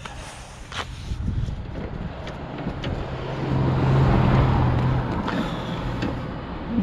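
A motor vehicle driving past: a steady engine hum that swells to its loudest about four seconds in and then fades, with a few light clicks.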